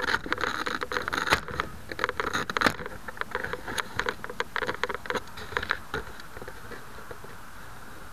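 Handling noise on the foam fuselage of a Bixler 2 RC plane right beside its onboard camera: hands rubbing, scraping and tapping in a dense, irregular run of scratchy clicks. The clicks thin out about six seconds in, leaving a steady faint hiss.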